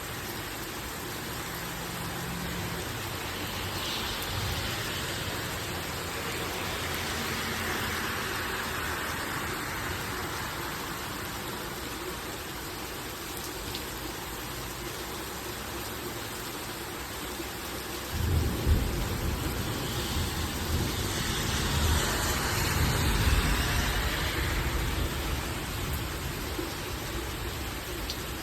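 Heavy rain pouring steadily in a thunderstorm. About two-thirds of the way through, a loud rumble of thunder breaks in suddenly and rolls on for several seconds.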